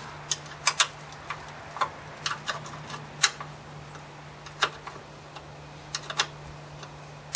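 A small 3/8 spanner clicking on a bolt head and the metal engine cover as the cover bolts are undone: irregular sharp metallic clicks, a few a second at most, over a low steady hum.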